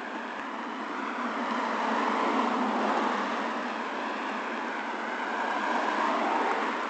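Road traffic: tyre and engine noise of cars passing on a nearby street, swelling twice as vehicles go by.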